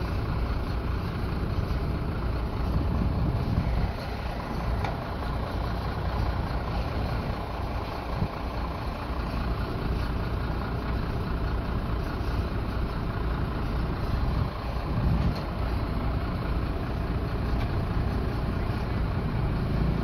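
Heavy truck diesel engine running steadily with a low rumble, as the truck cranes work the lift of the overturned concrete truck.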